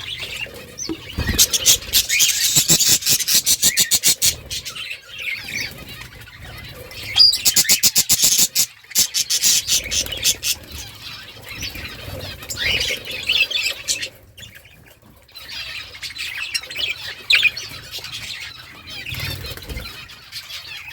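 Budgies chattering and chirping in a warbling stream, with two stretches of rapid clicking.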